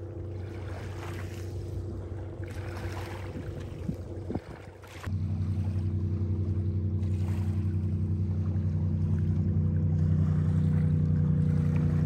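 A boat motor runs steadily at an even, low pitch with a fast regular pulse. It is faint at first, then becomes suddenly and much louder about five seconds in, holding constant after that.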